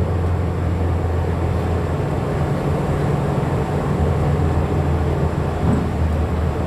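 Steady low drone of a vehicle's engine and road noise heard from inside the cabin while driving.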